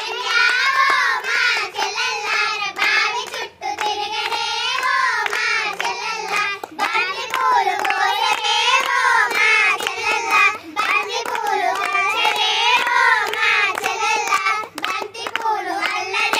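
A group of young girls singing a traditional Telugu Kamudu folk song together in unison, clapping their hands in time.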